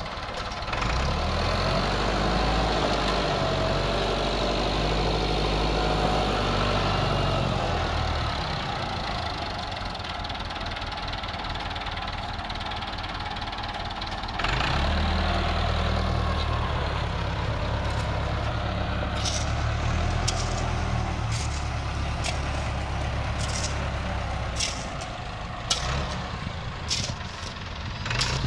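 An engine running steadily, its low hum dropping away for several seconds in the middle and returning. Sharp clicks or knocks come repeatedly near the end.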